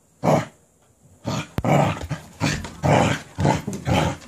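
Cardigan Welsh Corgi growling in short bursts: one near the start, then after about a second's pause a rapid run of two or three growls a second, the dog worked up into a frenzy over a cabbage core.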